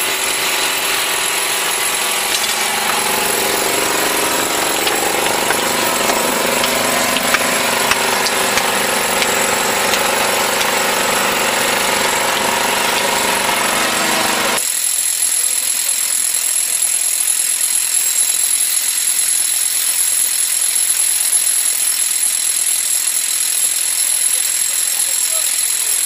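Electric hammer drill boring into rock, a steady rattling machine noise. About halfway through the sound changes abruptly: the low and middle part drops away, leaving a thinner, high-pitched hiss.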